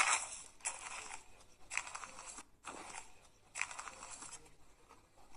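Crinkling, rustling handling noise in about five short bursts, the first and loudest right at the start, dying down after about four and a half seconds.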